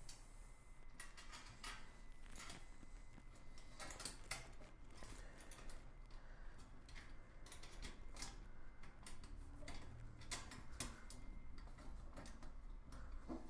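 Scattered light clicks and taps of small hardware and parts being handled, coming at an irregular pace.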